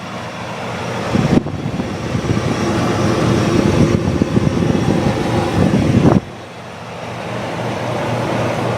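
Sears Coldspot 30 dehumidifier running just after start-up, its fan and compressor giving a steady hum with air rushing. About a second and a half in, a louder, rougher rushing noise sets in, and it cuts off suddenly about six seconds in.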